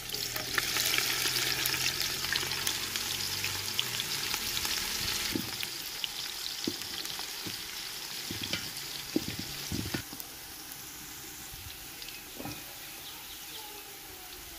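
Sliced onions sizzling in hot oil in a large aluminium pot, loudest just after they go in. A wooden spatula stirs them and knocks against the pot a few times, and about ten seconds in the sizzle drops to a softer, steady frying.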